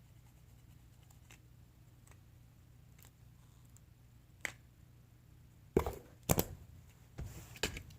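Cardboard being handled during crafting: a lone click about halfway in, then a cluster of sharp clicks and scrapes near the end, over a low steady hum.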